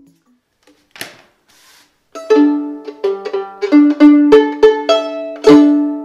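Violin strings plucked by hand, a run of ringing notes from about two seconds in, preceded by a brief rustle. The violin has just had its worn tail gut replaced, and the strings ring cleanly with no creak or slipping.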